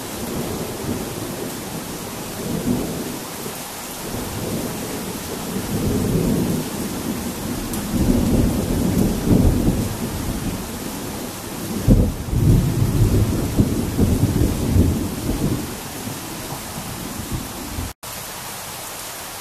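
Heavy rain falling steadily during a thunderstorm, with thunder rumbling in long swells from about six seconds in and a sudden loud clap about twelve seconds in. The sound cuts out for an instant near the end.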